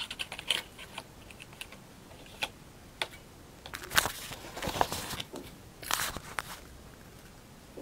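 Handling noise of small plastic clock parts: scattered clicks and taps with short rustling crackles, loudest about four and six seconds in.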